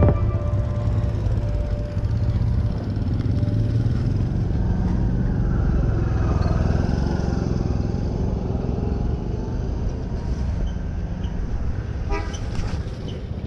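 Street traffic: motorbikes and cars running past with a steady low rumble. A short run of clicks comes near the end.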